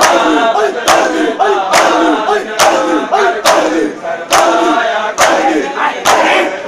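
Matam: a group of Shia mourners slapping their bare chests with open hands in unison, one loud slap about every second, with the men chanting in rhythm between the slaps.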